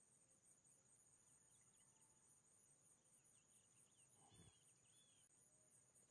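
Near silence with a faint, steady, evenly pulsing high insect-like trill, and a few faint high chirps partway through.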